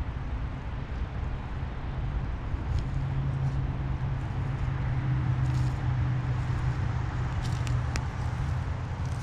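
Road vehicle running: a steady low rumble with an engine hum that comes up about three seconds in and holds, and a few faint clicks near the end.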